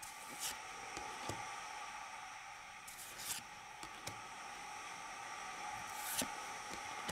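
Pokémon trading cards being slid one at a time off the front of a hand-held stack and onto the back: a short papery swish about every three seconds, with light taps between, over a steady hiss.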